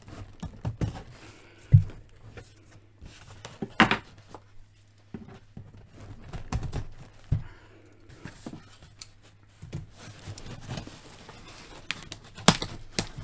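Hands handling a cardboard shipping box and picking at its packing tape: scattered taps, scrapes and crinkles, with a cluster of sharper ones near the end.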